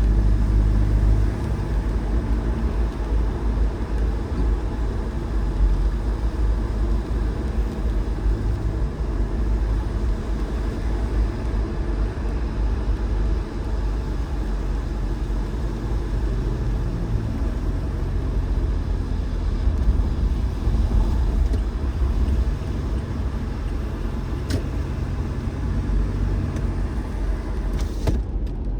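Car driving steadily, a continuous low road and engine rumble with no change in pace. A single sharp click sounds near the end.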